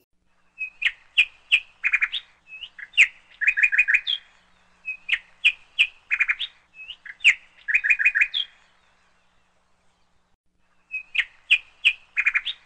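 Small songbird chirping: a phrase of high chirps and quick trills about four seconds long, repeated three times, with a pause of about two seconds before the last one.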